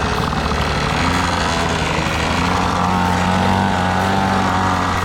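Pocket bike's small engine running with a steady buzz, its pitch rising a little about a second in.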